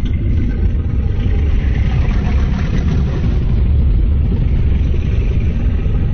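A loud, deep, steady rumbling monster sound effect for Mechagodzilla, dense and noisy with little clear pitch.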